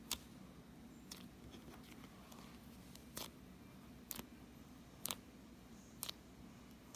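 Slime being handled, giving faint sharp clicks and pops roughly once a second over a low room hum.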